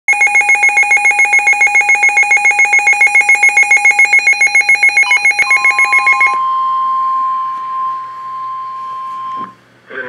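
Midland NOAA weather radio sounding a warning alert: rapid pulsing beeps, about six a second, for roughly six seconds. They are followed by the steady single-pitch NOAA Weather Radio warning alarm tone, which runs about four seconds and cuts off abruptly. This is the signal of a severe thunderstorm warning being broadcast.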